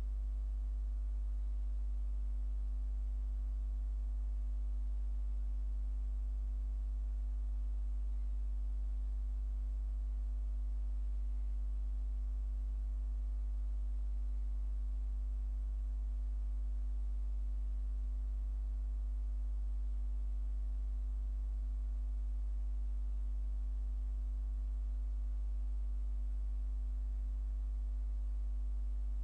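Steady low electrical hum, with a set of fainter, even higher tones above it that never change.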